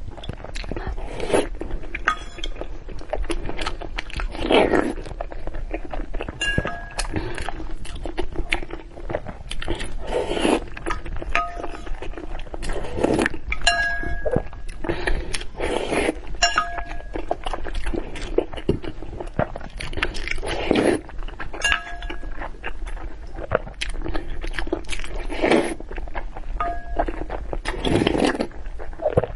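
Eating utensils clinking, knocking and scraping against bowls and dishes, with short ringing pings every few seconds among the clatter.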